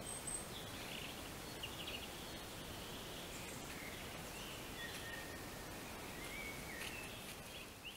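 Small birds chirping and whistling in short calls throughout, over a steady background hiss, with a few faint ticks.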